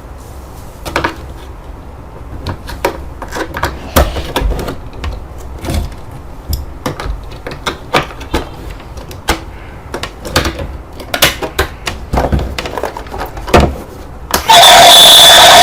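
Irregular clicks and light knocks of a plastic toy and its packaging being handled. About a second before the end, a loud electronic toy sound effect with steady high tones cuts in suddenly.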